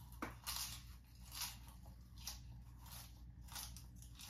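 A person chewing something crunchy close to the microphone: faint, irregular crunches and clicks, the strongest about half a second in.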